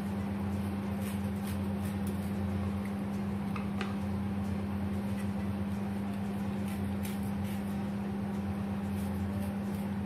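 A steady low electrical hum from a running appliance, with a few faint taps and scrapes of a kitchen knife scoring squid on a wooden cutting board.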